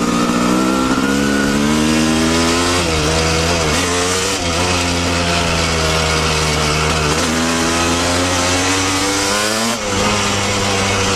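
Yamaha YZ250 two-stroke dirt bike engine under throttle, its pitch climbing and then dropping back about four times as the rider works the throttle and gears. A steady hiss runs underneath.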